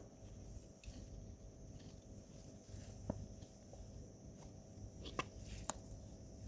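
A few soft knocks and scrapes, the sort made when digging potatoes out of soil and handling them, with three sharper clicks in the second half over a low rumble.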